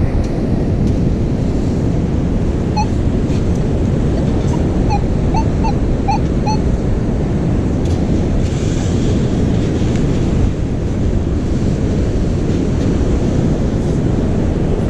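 Wind buffeting the microphone over the rush of surf. About three seconds in comes a run of seven or so short, high pips over roughly four seconds.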